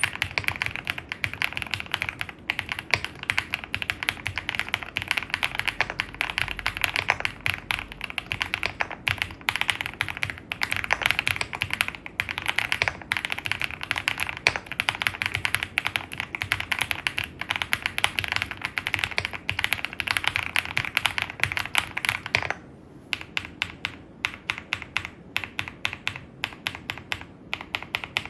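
Typing on an Epomaker Galaxy68 mechanical keyboard with Epomaker Wisteria linear switches, with fast, continuous keystrokes. Near the end the typing thins out to slower, separate key presses.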